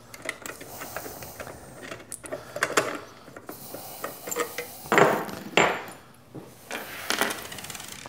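Metal parts being handled as a sheet-metal tool rest is unbolted and taken off a 6-inch bench grinder: scraping and clicking, with several sharp knocks, the loudest two about five seconds in.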